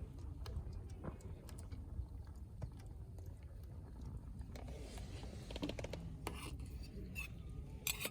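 Light clicks and taps of cooking utensils over a steady low rumble, with a brief murmured voice about five seconds in.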